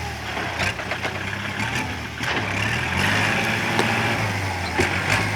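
A vehicle engine idling steadily, with a few short clicks over it.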